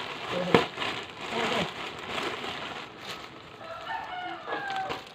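A rooster crowing once, a held call of about a second and a half near the end.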